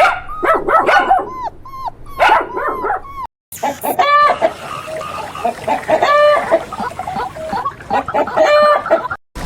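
Puppies yipping and whimpering in a dense run of short calls; after a cut, chickens clucking, with three longer drawn-out calls about two seconds apart among the clucks.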